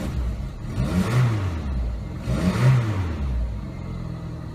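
1997 Pontiac Sunfire's four-cylinder engine revved twice, rising and falling in pitch each time, then settling back to idle. It is the engine's first run after sitting for two years, and it doesn't run the best.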